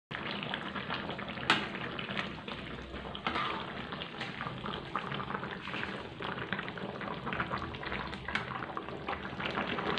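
Coconut-milk curry of banana blossom and chicken feet bubbling in a metal wok while a metal spatula stirs it, scraping and knocking against the pan; the sharpest knock comes about a second and a half in.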